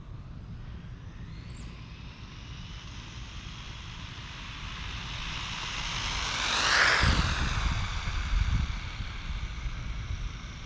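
Traxxas Rustler VXL RC car's Velineon 3500 brushless motor and drivetrain whining at speed as the car passes by: the whine grows louder, peaks about seven seconds in with a low rumble, then drops in pitch as it moves away.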